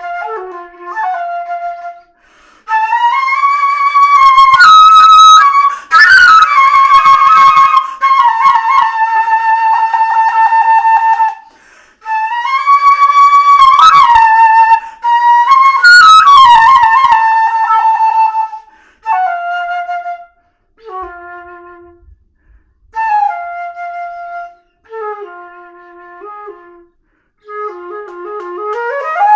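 Solo flute playing. It starts with loud phrases of long held notes with vibrato. From about two-thirds of the way in it moves to short, quieter phrases with pauses between them, and it ends on a quick upward glide.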